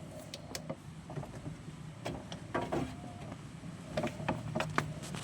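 Scattered light clicks, knocks and rattles of hand tools and gear being handled, over a low steady hum.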